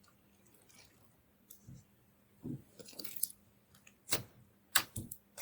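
Slime being squeezed and poked by hand: scattered wet squelches and sticky popping clicks, with the sharpest pops a little after four seconds and near five seconds in.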